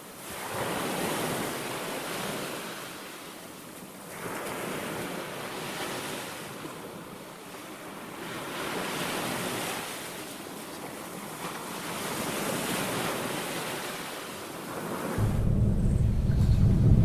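Sea surf washing on a shore, swelling and fading about every four seconds, with wind. Near the end a deep low rumble comes in and becomes the loudest sound.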